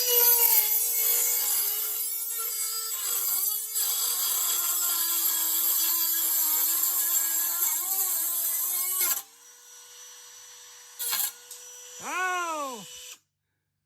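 High-speed rotary tool with a cut-off wheel grinding through the lawnmower's metal muffler bracket, its motor pitch sagging under load. About nine seconds in the cutting noise stops abruptly as the cut-off wheel breaks, and the motor spins on freely and much quieter. A man exclaims "Oh!" near the end.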